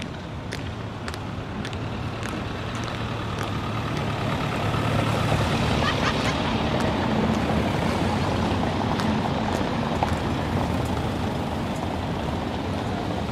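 Marching soldiers' boots striking cobblestones in a steady step, a little under two steps a second, while a van drives past, its engine and tyres growing louder toward the middle and easing off near the end.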